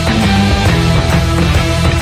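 Background rock music with a steady beat, about four strikes a second.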